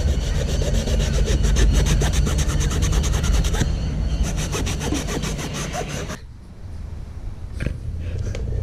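Scotch-Brite abrasive pad scrubbed rapidly back and forth over a carbon fibre fin blade, scuffing its surface, at about five or six rubbing strokes a second. The scrubbing stops suddenly about six seconds in, leaving a low rumble.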